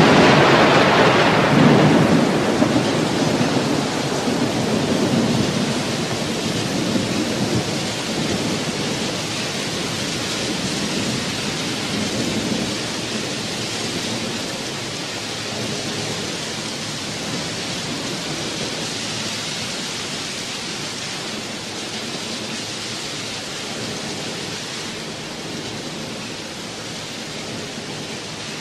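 Recorded rain with rumbling thunder, the sound effect that closes a heavy metal track, slowly fading. The thunder is heaviest in the first few seconds.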